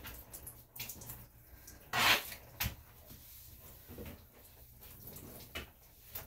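Water dripping and splashing in a bathtub as a small wet dog is held and squeezed out after its bath, with one short loud burst of noise about two seconds in.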